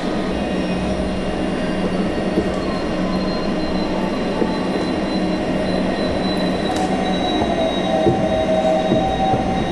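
A steady rumbling noise with a low hum and several faint, high, thin whining tones that drift slightly in pitch.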